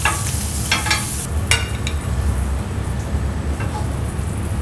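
Slices of cheese and zucchini sizzling on a hot grill, with a few sharp clicks in the first second and a half. A steady low rumble runs underneath.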